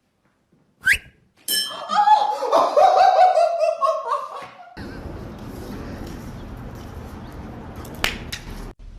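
A person laughing for a few seconds, followed by a steady low background hum with a couple of clicks.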